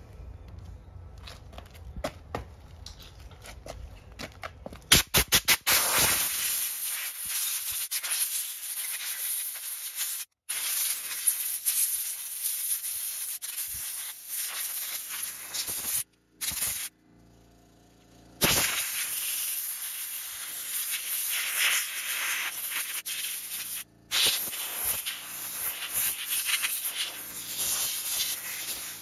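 A compressed-air blow gun hisses in long bursts as it blows water and dirt off the plastic cover and spool of a nylon-cord trimmer head. It starts a few seconds in, stops for a couple of seconds past the middle, then resumes with one short break. Before it starts there are light handling clicks.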